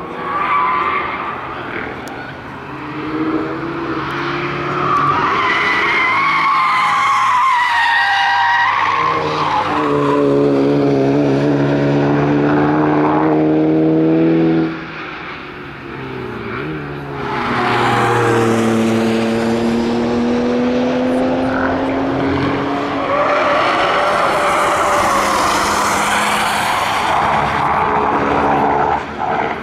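A succession of ordinary road cars, among them a small city car, a hot hatchback and a small Ford Transit Connect van, driven flat out through the corners of a racetrack: engines revving high and rising in pitch as they pass, with wavering tyre squeal. The sound cuts abruptly between passes, a little under halfway through and again near the end.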